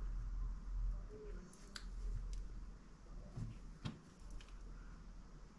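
A few faint, separate clicks and light handling noises as small plastic model parts and a screwdriver are picked up and set down on a cutting mat, over a low steady hum.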